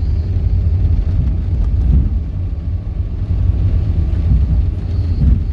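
Car interior noise while driving: a steady low rumble of the engine and tyres on the road, heard from inside the cabin.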